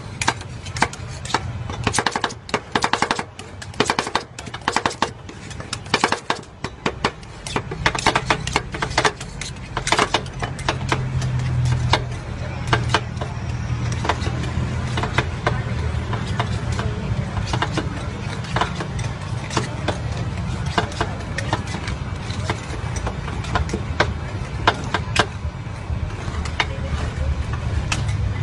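Metal spatulas chopping and scraping ice cream on a frozen steel pan: rapid tapping clicks, then sparser taps as the mix is spread thin, over a steady low hum.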